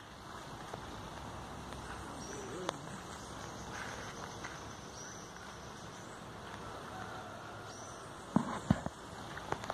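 Quiet outdoor ambience over gravelly dirt ground: a steady background hiss with a few faint short high chirps, and a brief cluster of scuffs on the gravel a little over eight seconds in.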